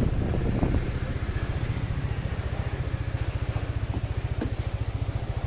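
A small engine idling with an even, fast low beat, after some brief handling knocks in the first second.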